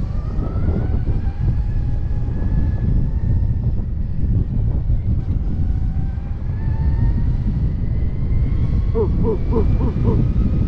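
Wind buffeting the microphone over the faint whine of a Stark Varg electric dirt bike's motor, rising and falling in pitch as it is ridden. Near the end comes a quick run of five short high notes.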